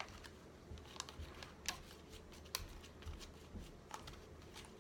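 Baseball trading cards being handled and flipped through, giving faint, scattered soft clicks and slides of card stock.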